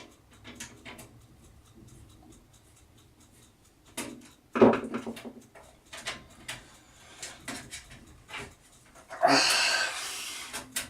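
Scattered small clicks and knocks of hands working a bent screw and bracket on a metal PC case, with a louder knock about four seconds in. Near the end there is a loud exhale.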